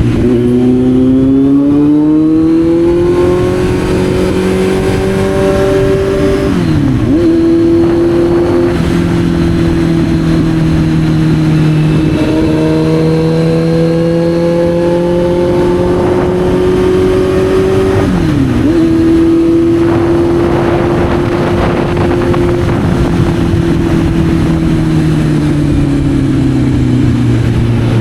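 Kawasaki Z900's inline-four engine under way, heard from onboard. Its pitch climbs at first, twice dips sharply and picks up again, then falls slowly near the end as the bike slows. A steady rush of wind and road noise runs underneath.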